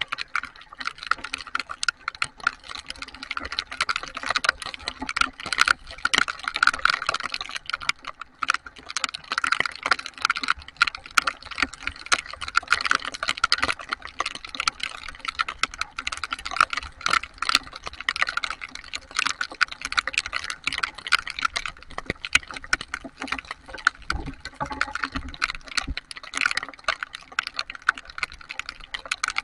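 Heavy rain: a dense, irregular patter of raindrops striking a surface close to the microphone. A brief low rumble comes in near the end.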